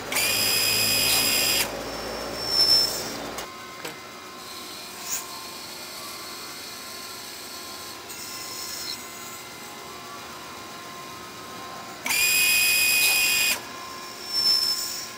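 JY-1525/2025 cam automatic lathe running through its cutting cycle on a brass part, several tools cutting at once. A high whining squeal from the cutting lasts about a second and a half at the start and comes back about twelve seconds in, with a short sharp screech a second after each, and the machine runs steadily in between; the repeat marks one part per cycle.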